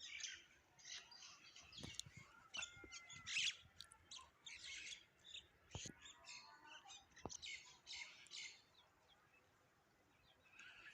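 Several small birds chirping and twittering in short, overlapping bursts, thinning out to near quiet in the last couple of seconds, with a few faint clicks.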